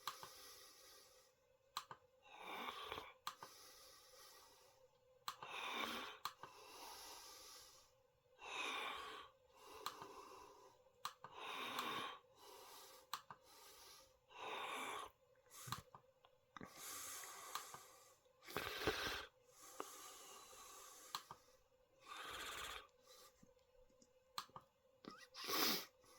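A person breathing slowly and faintly near the microphone, a soft breath about every three seconds, over a steady faint hum and a few light clicks.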